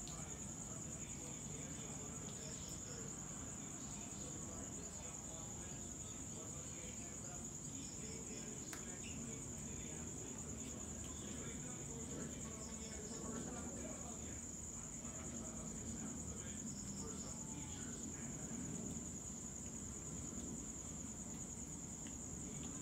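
Crickets trilling: one continuous, steady high-pitched trill.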